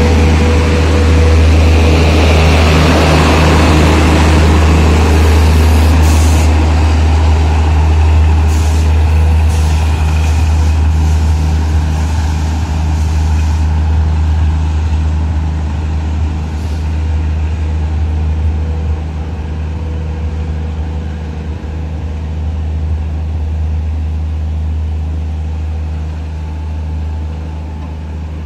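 Coaches of an electric-locomotive-hauled Indian Railways passenger train rolling past close by: a loud, steady rumble of wheels on rail with a few sharp clicks, slowly fading toward the end as the train goes by.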